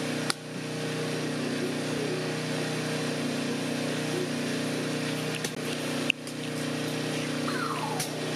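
An engine running steadily at one constant speed, a low even hum. A sharp click comes just after the start and another about six seconds in.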